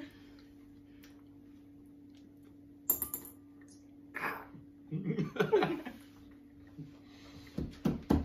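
Jelly beans on a wooden tabletop: small hard clicks and taps as they are handled, with one sharp click about three seconds in and a few knocks near the end.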